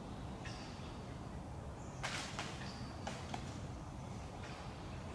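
Disc golf throw: a sharp swish about two seconds in, followed by a fainter swish about a second later and a small click.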